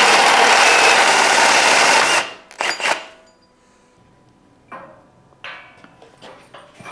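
Corded electric drill driving a hole-saw tube notcher, cutting a fish-mouth notch into a steel frame tube for about two seconds before it stops. A couple of short bursts follow, then a few faint knocks as the notched tube is handled.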